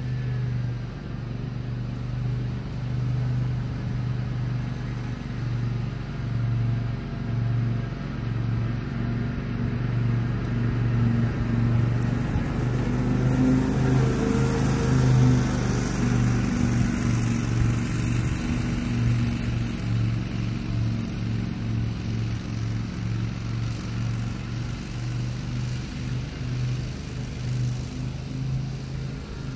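Grasshopper Model 612 zero-turn riding mower running steadily as it drives across the lawn. It grows louder as it comes closest, about halfway through, then fades as it moves away.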